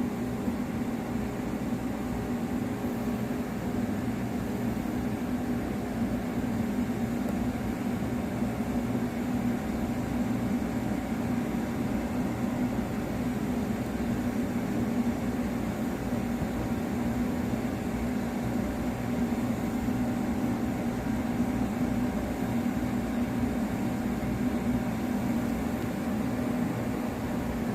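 Compact 5-axis CNC tool grinder running steadily: an even machine hum with a thin, steady whine above it.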